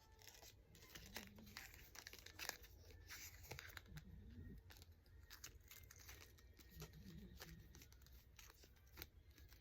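Faint crinkling and rustling of packaging being handled, with scattered small clicks and taps.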